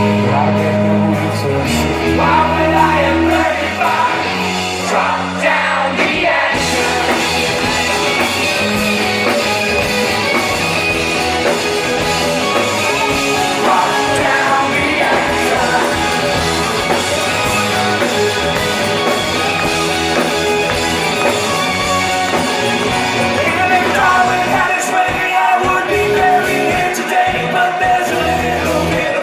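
Live rock band performing a song, with a singer over guitars, bass and drums, in a large hall.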